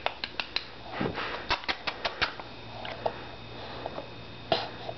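A baby feeding herself macaroni and cheese by hand from a plastic bowl on a high-chair tray: a string of small, sharp clicks and taps, bunched mostly in the first two and a half seconds. A short, louder noise comes about four and a half seconds in.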